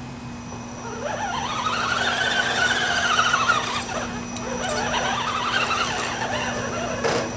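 Electric drive motor and gears of a 1/6 scale RC WC52 weapons carrier on an Axial Wraith chassis, whining as it drives forward and then reverses. The whine rises and falls in pitch twice with the throttle.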